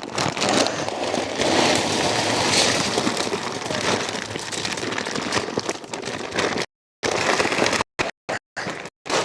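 Dry feed grain pouring in a steady rush into a feed can. The sound cuts out abruptly several times near the end.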